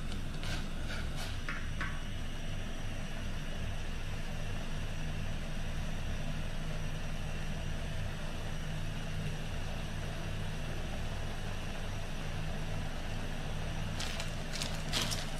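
Portable butane gas stove burning steadily under a stainless steel pot of water at a rolling boil, a steady low rumble with bubbling. A few light clicks of handling come near the start and again near the end.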